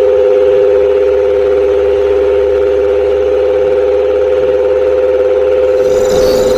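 Small electric motor of a miniature tractor/thresher model running with a steady, slightly wavering whine over a low hum. The hum drops out about a second before the end, as other, brighter sounds come in.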